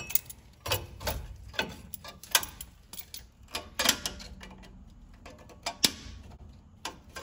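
Irregular metallic clicks and scrapes of a hand tool and a steel spring against the parking brake shoes and backing plate of a 2015 Ram 1500's rear brake, as a shoe spring is pried loose. Two clicks stand out louder than the rest.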